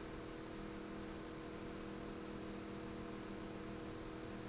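Steady electrical hum, several even tones holding unchanged, with a faint hiss behind it.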